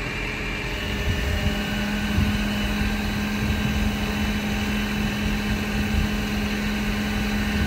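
Flatbed tow truck's engine running steadily, with a low rumble and a steady hum that comes in about a second in.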